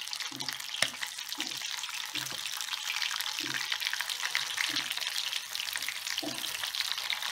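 Breaded oysters deep-frying in shallow oil in a small stainless steel pot: a steady, dense sizzle and crackle, even and without spattering, with one sharp click about a second in.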